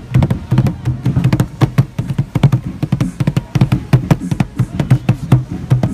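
A drum with an Evans head beaten rapidly with bare hands, a fast, uneven run of slaps over a low drum tone.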